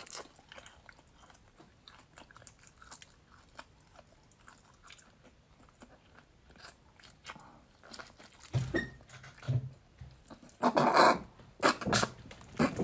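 Close-miked mouth sounds of a person biting and chewing a chili-coated flatbread: quiet scattered smacks and clicks at first, turning louder and denser after about eight seconds, with a few louder bursts near the end.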